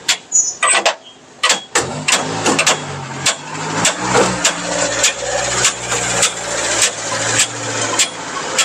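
Sharp metallic clicks and knocks, roughly two a second, as the long handle of a floor jack is pumped to raise a truck at the wheel. A vehicle engine drones underneath.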